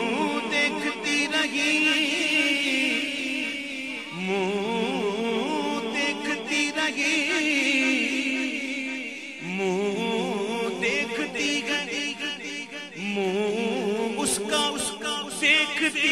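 A man singing an Urdu naat solo and unaccompanied into a microphone, in long drawn-out phrases with a wavering vibrato, each new phrase starting every four to five seconds.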